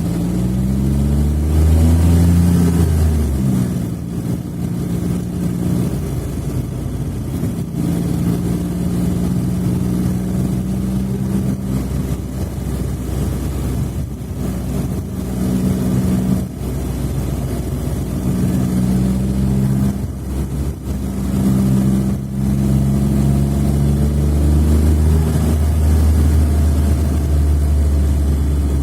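Smart fortwo 451's small three-cylinder engine running under way. It rises in pitch in the first few seconds, then holds fairly steady, with several brief dips and changes in pitch.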